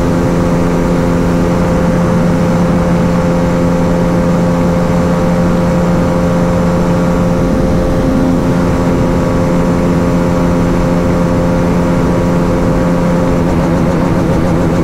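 Hero Karizma XMR's single-cylinder engine running flat out at top speed, holding one steady high pitch, with heavy wind rumble on the microphone.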